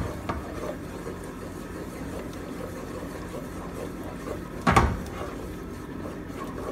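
Wooden spoon stirring thick cheese sauce in a nonstick pot, with one brief knock a little under five seconds in. A low steady hum runs underneath.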